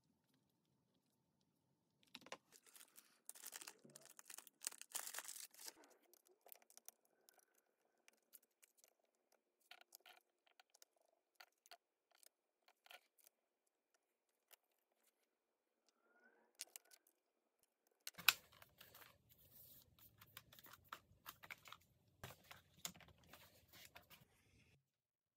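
Faint clicks, taps and scraping of hands handling a laptop's plastic case and parts during reassembly: a dense run of scratching and clicking a few seconds in, scattered clicks after, then a sharp knock about eighteen seconds in and more handling.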